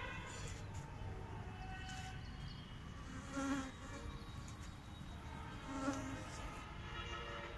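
A flying insect buzzing close by, swelling loudest twice, about three and a half and six seconds in, over faint bird chirping.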